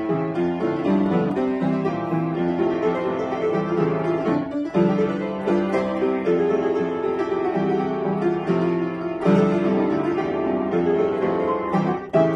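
Upright piano playing a medley of Japanese children's songs, the notes running on with a brief break about four and a half seconds in and another near the end.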